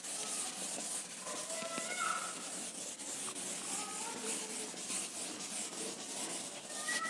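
Hand writing: a pen scratching across a writing surface in continual short strokes, with a few faint short squeaks now and then.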